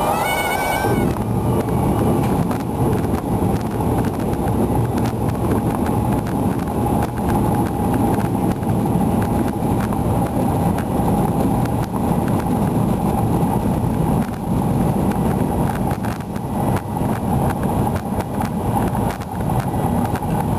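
Cessna 172H's Continental O-300 six-cylinder engine running steadily at low power during the taxi after landing, heard from inside the cabin, with occasional short knocks.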